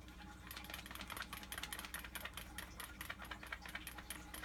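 Faint, rapid, irregular clicking, many clicks a second, over a steady low electrical hum.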